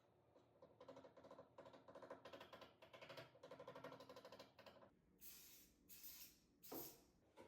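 Faint rapid clicking for several seconds, then three short hissing sprays of CA glue accelerator near the end.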